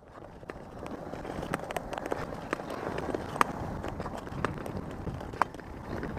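Ice skates gliding and scraping over natural ice, in a steady rhythm of strokes with a sharp tick about once a second.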